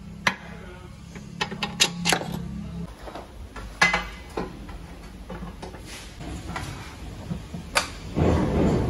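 Scattered metallic clicks and knocks as a suspension arm is levered with a pry bar and the shock absorber is worked out of the car's wheel well, with a longer rough scraping noise near the end as the shock comes out.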